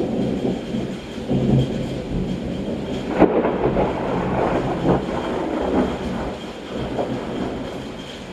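Thunder rolling and rumbling, with a sharp crack about three seconds in, then further rolls that ease off near the end.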